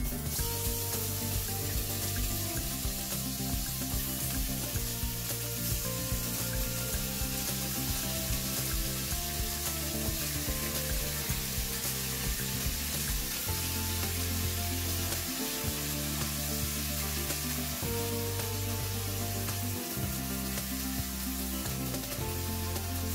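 Raw chicken pieces and chopped garlic sizzling in hot oil in a wok as they are stir-fried with a wooden spatula, a steady hiss throughout. Background music plays along underneath.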